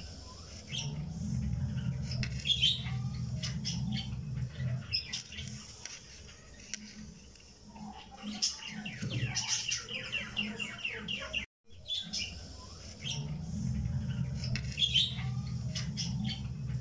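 Looped background soundtrack of birds chirping over a low, steady hum. It drops out briefly about eleven and a half seconds in and then starts over.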